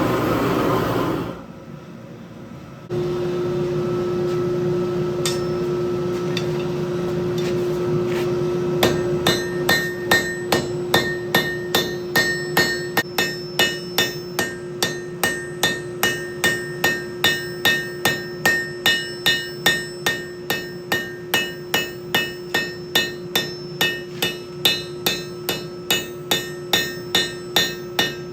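Hammer blows on hot steel at the anvil while forging a riveting hammer head, a few scattered strikes at first, then a steady run of ringing blows at about two a second from about nine seconds in. A steady hum runs beneath the hammering.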